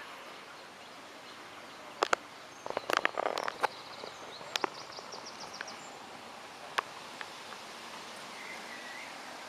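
Steady outdoor background hiss with birds calling faintly: a quick high trill in the middle and a short wavering call near the end. A series of sharp clicks and knocks, the loudest sounds, comes about two to four seconds in.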